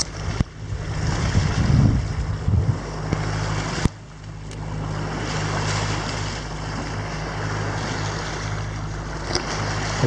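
A sailing yacht's inboard engine running steadily under way in flat calm, with water rushing along the hull. A sharp click about four seconds in.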